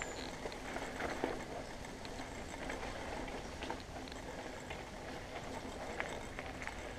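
Mountain bike tyres rolling over a dry, loose dirt trail with a steady crunching hiss, mixed with scattered small clicks and rattles from the bike.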